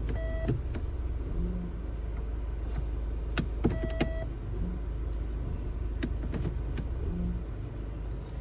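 Mahindra Scorpio-N diesel automatic idling with a steady low drone while the gear selector is shifted between reverse and drive. Each shift brings sharp clicks and knocks from the gearbox, with two short electronic beeps. The owner likens the noise to a worn clutch plate and feels the gear is catching somewhere.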